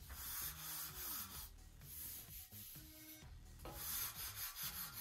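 Hand sanding block rubbed back and forth over a glued-up sheet of balsa wood, smoothing the joined wing skin. The scratchy strokes come in two spells, the second, starting a little before four seconds in, the louder.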